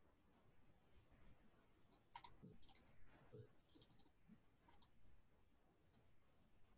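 Near silence with faint clicks of a computer mouse and keys, a scattered handful of them from about two seconds in.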